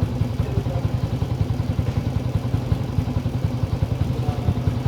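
Yamaha Mio i 125 scooter's single-cylinder engine idling steadily, with a fast, even pulse.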